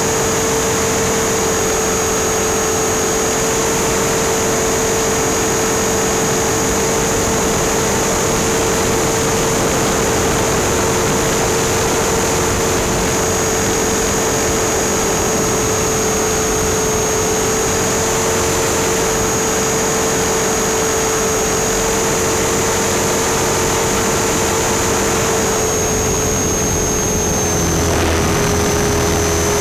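Small RC helicopter's motor and rotor, heard up close from on board, running at a steady high-pitched drone with rushing noise. The pitch dips slightly near the end.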